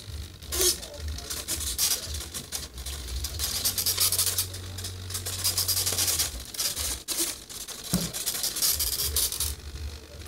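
Handling noise: irregular rubbing and scraping as the foam RC plane is moved by hand, over a steady low hum that drops out for a couple of seconds past the middle.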